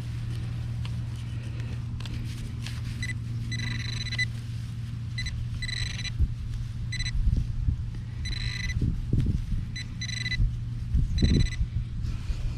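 Metal-detecting pinpointer beeping in short bursts as it is probed around a dug hole, a steady high tone that starts and stops repeatedly, signalling metal nearby. A steady low hum runs underneath, and soil is handled with dull thumps in the later part.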